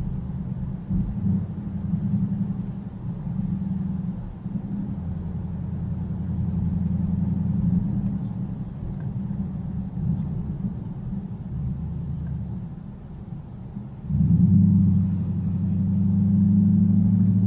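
Low drone of a car's engine and road noise heard from inside the moving car, growing louder near the end.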